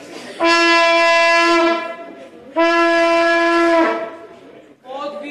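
A hand-held horn blown in two long, steady blasts on the same note, each about a second and a half. Near the end, men's voices start a sung chant.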